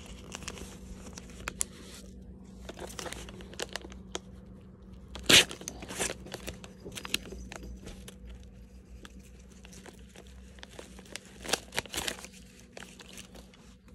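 A yellow paper padded mailer being torn open by hand: crinkling paper and a string of sharp tearing crackles, the loudest snap about five seconds in.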